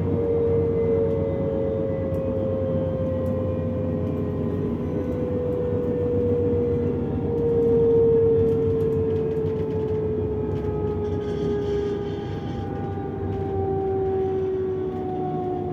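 Inside a DB Class 425 electric multiple unit: the whine of its traction converters and motors, several tones sliding slowly down in pitch as the train slows, over the steady rumble of the wheels on the track.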